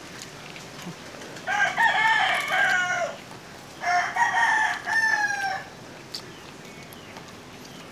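Rooster crowing twice in quick succession, each crow about one and a half seconds long and ending on a falling note.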